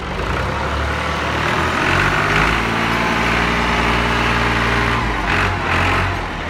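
New Holland Ghazi tractor's diesel engine working hard under load as it pulls a heavily loaded sand trolley. It revs up about two seconds in, holds steady, and eases off a little after five seconds.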